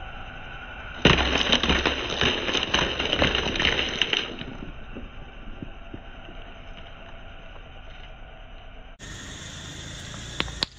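A dozen eggs in a plastic carton crunching and crackling under a car tyre, a dense run of shell and carton cracks starting about a second in and lasting about three seconds.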